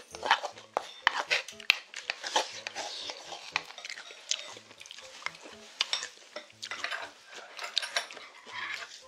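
A wooden spoon scraping and tapping in a wooden bowl during eating, with close chewing, making many irregular clicks and scrapes.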